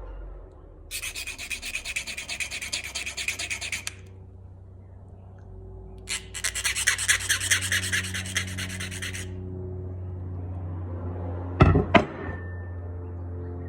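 A metal file rasping back and forth on a screwdriver's damaged tip to reshape it, in two bouts of quick, even strokes of about three seconds each. Two sharp knocks follow near the end.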